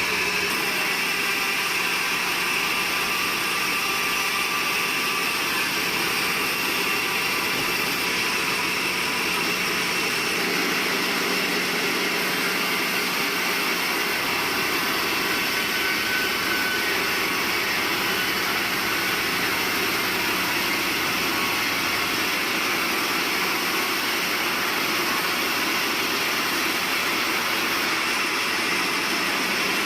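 Sawmill machinery running steadily: a constant, unchanging mechanical noise with a low hum underneath.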